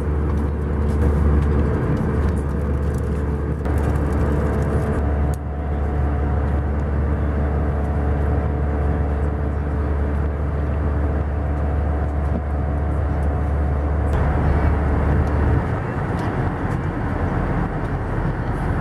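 Airbus A320 cabin noise in flight: a steady drone of engines and airflow over a strong low hum. The sound shifts abruptly about five seconds in and again near the end.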